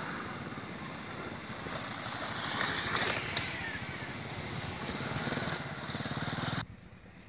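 Small motorcycle engines running as motorbikes cross over a railway level crossing, growing louder as one passes close by, with a sharp click about three seconds in. The sound cuts off suddenly near the end.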